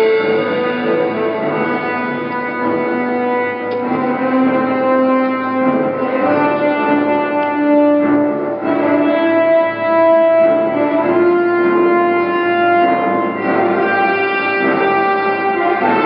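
Orchestral background music, sustained string and brass notes moving slowly from one to the next.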